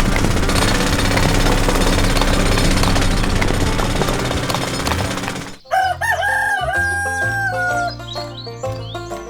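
Steady, dense mechanical noise that cuts off abruptly about five and a half seconds in. A rooster then crows once over background music.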